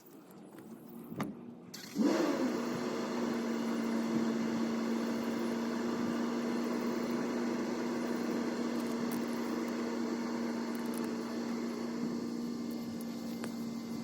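Heat gun switched on about two seconds in: its fan motor spins up with a brief rising whine, then runs steadily with a constant hum and a rush of blown air.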